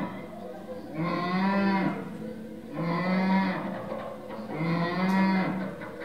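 Mooing: three long, low, cow-like calls of about a second each, spaced under two seconds apart.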